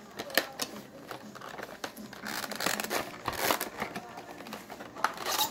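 Packaging of a tight-fitting model locomotive box being worked open by hand: irregular crinkling and scraping, with a sharper click about five seconds in.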